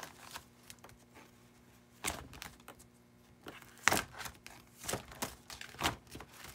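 Clear plastic trading-card binder sleeves being turned by hand, crinkling and swishing in several short rustles, the loudest about four seconds in.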